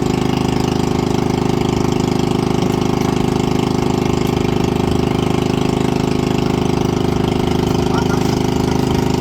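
Boat engine running steadily at an unchanging speed, with a fast, even beat.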